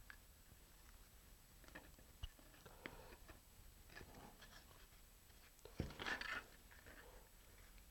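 Faint handling of small laser-cut fixture parts pressed together by hand, with scattered light clicks and a brief rustle about six seconds in.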